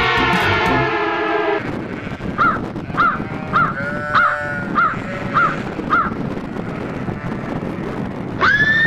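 A crow cawing seven times in an even series, a little under two calls a second. Before it, a held many-toned sound cuts off about a second and a half in. Near the end a horse begins to whinny.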